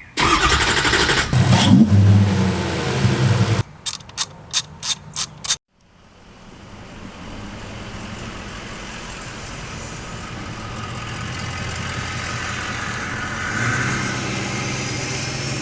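A vehicle engine running loudly for about three and a half seconds, then about six short sharp bursts. After a sudden cut, a steady engine note fades in and holds.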